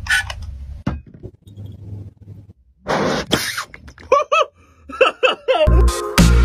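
A brief whoosh about three seconds in, plausibly the sanitizer vapour in the glass bottle catching fire. It is followed by a few short, wavering pitched sounds.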